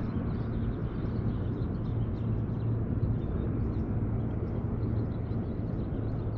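An engine running steadily in the distance, a low even hum over outdoor ambience.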